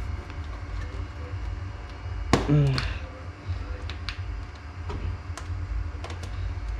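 Scattered light clicks and knocks of a computer case and its panels being handled during reassembly, with a short vocal sound about two and a half seconds in, over a steady low hum.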